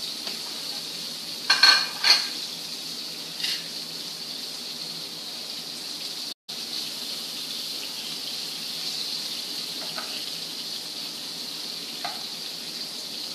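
Coconut-coated shrimp frying in coconut oil in a skillet, a steady sizzle. Over it come a few sharp clinks of metal kitchen utensils, loudest about one and a half to two seconds in. The sound drops out for a split second about six seconds in.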